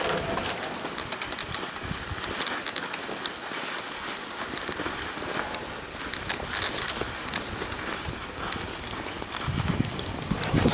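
Skis scraping and hissing over packed snow while being pulled uphill on a drag lift, with irregular clicks and rattles throughout.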